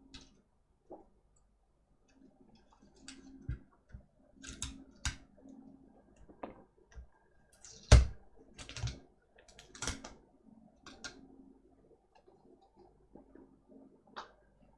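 Scattered clicks and knocks of small tools and laptop parts being handled on a workbench, with a sharper knock about eight seconds in and a faint steady hum underneath.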